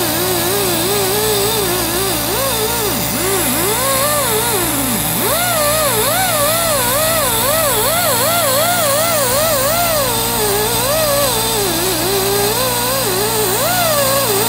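Die grinder with an abrasive surface-conditioning disc scrubbing old gasket off a cylinder head's manifold mounting face. Its whine wavers up and down about twice a second as the disc is pressed and moved, and sags low twice in the first few seconds under heavy pressure.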